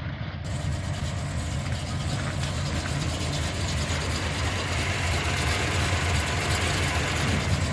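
Chrysler 440 big-block V8 in a 1978 Dodge Power Wagon W200 idling steadily through its old, smaller-than-3-inch exhaust.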